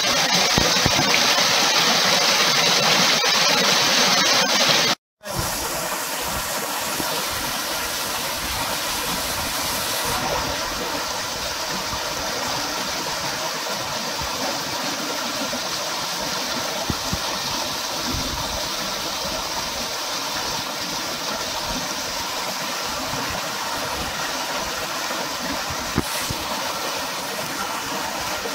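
Small waterfall pouring into a rock pool: a steady rush of falling water. It drops out briefly about five seconds in, then carries on a little quieter.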